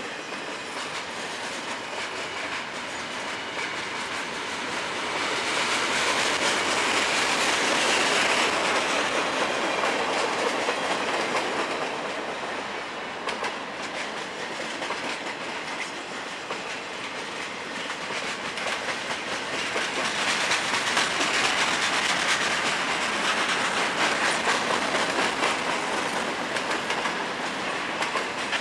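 Freight cars of a mixed manifest train (boxcars and covered hoppers) rolling past: a steady rumble and rattle of steel wheels on the rails with clicking over the rail joints, swelling louder twice.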